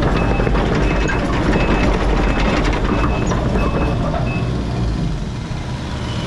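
Heavy equipment's engine running under load while its backup alarm beeps, a short high beep about every 0.7 s; the beeping stops about four and a half seconds in as the machine stops reversing.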